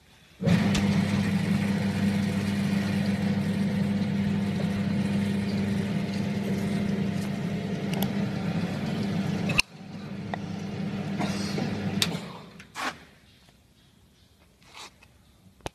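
Electric motor of a curry puff (karipap) forming machine running with a steady hum. It cuts off abruptly about nine and a half seconds in, runs again for about two seconds, then stops, followed by a few short knocks.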